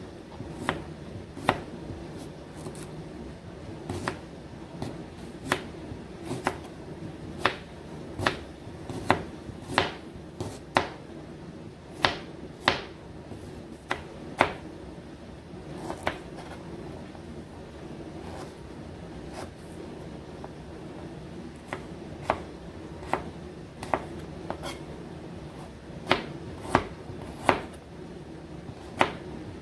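Small kitchen knife chopping fresh ginger root on a plastic cutting board: sharp, irregular knocks of the blade against the board, roughly one a second, with quicker runs and a sparser lull midway, over a faint steady hum.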